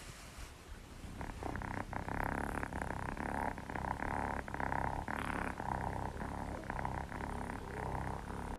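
Ginger kitten purring steadily, the purr starting about a second in.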